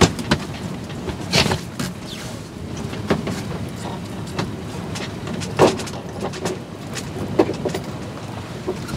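Sailing yacht underway in a fresh breeze: a steady rush of wind and water over the inboard diesel auxiliary engine running underneath. Several sharp knocks and short squeaks from the deck gear break through it.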